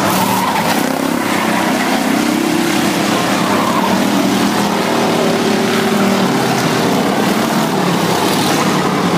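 Dirt-track race car engines running as a pack of cars laps the oval. Several engine notes overlap, their pitch sliding up and down as the cars come by and pull away.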